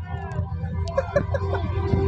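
Stadium background: music playing over the public-address system, with scattered voices of the crowd and a steady low rumble underneath.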